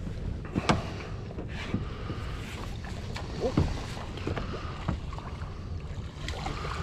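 Water splashing and slapping against a boat's hull, with wind on the microphone and a few light knocks; a hooked chain pickerel splashes at the surface beside the boat as it is brought to the net.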